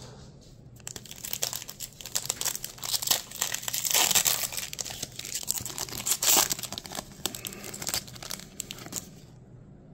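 Foil wrapper of a Pokémon trading-card booster pack crinkling and tearing as it is ripped open and handled, starting about a second in and stopping just before the end.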